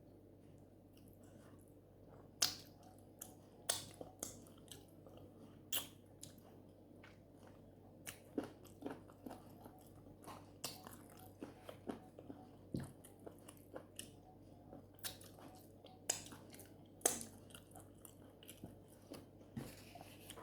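Close-up eating sounds of a person chewing fufu and palm nut soup with meat: soft chewing broken by irregular sharp lip smacks and clicks, several per second at times.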